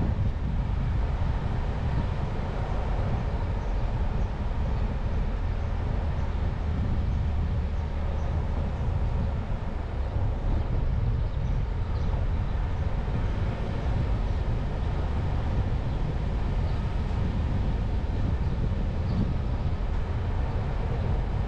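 A car driving along a street: steady road and wind noise over a low rumble, with no marked changes.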